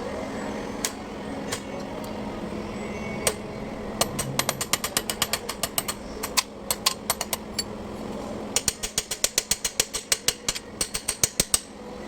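Two runs of rapid sharp metallic clicking, about seven clicks a second, from a wrench working bolts on a Kubota B1500 tractor being split to reach the clutch. A steady low hum runs underneath.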